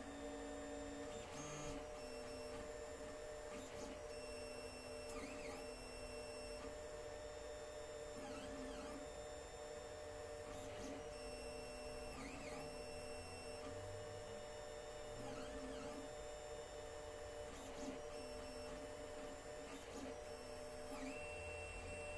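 Alfawise U10 3D printer printing: its stepper motors sing in shifting tones that hold briefly, then sweep down and back up each time the head and bed change direction, over a steady hum.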